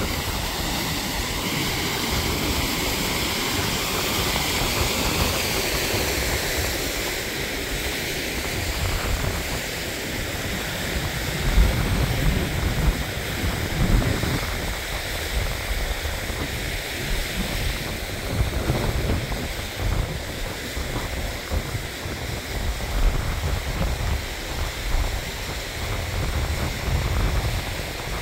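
Mountain stream rushing over rocks, strongest for the first several seconds. After that, wind buffets the microphone in low, uneven gusts.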